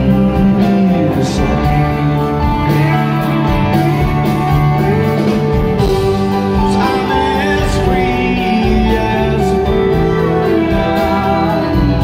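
A live rock band playing loudly through a concert sound system: electric guitars over bass and drums, with a lead vocal singing over them.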